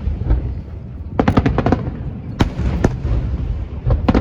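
Aerial fireworks going off: rapid clusters of sharp bangs and crackles over a low rolling rumble.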